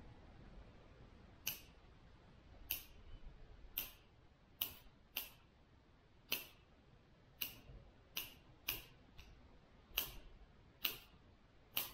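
Hand pruning shears snipping the lower branches off the base of bare-root spruce seedlings (butt pruning before planting): a dozen or so sharp snips, irregularly spaced about a second apart.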